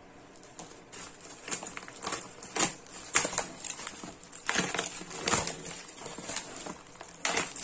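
Plastic courier parcel and bubble wrap being cut with a blade and torn open: irregular crinkling, crackling and ripping of plastic, starting about a second in.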